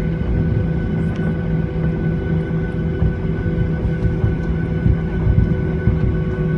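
A Boeing 737's jet engines running steadily at low power while the plane taxis, heard inside the cabin: several steady whining tones over a low, uneven rumble.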